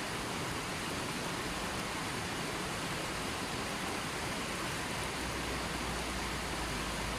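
River water flowing and rushing as a steady, even wash of noise.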